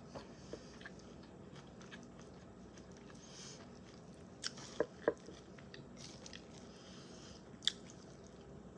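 Chewing and crunching of chicken salad, with a few sharp clicks around the middle and once more near the end.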